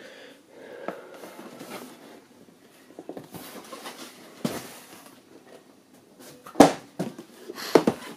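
Cardboard boxes being handled: a retail box lifted out of a shipping carton and turned over with scraping and rustling. It is then set down on a wooden tabletop, with two sharp knocks near the end.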